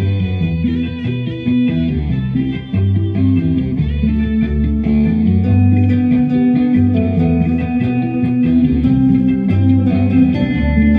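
Electric guitar played through an amplifier, a solid-body Stratocaster-style guitar picking out a melody, with low bass notes sounding under it.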